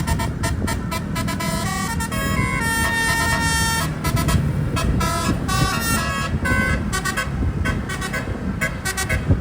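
Bus telolet horn, a bank of many air-horn trumpets, playing a quick tune of steady notes that change pitch every fraction of a second, over a low rumble of engine and road noise.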